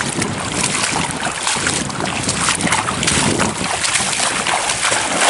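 Steady rushing of shallow river water, with wind buffeting the microphone.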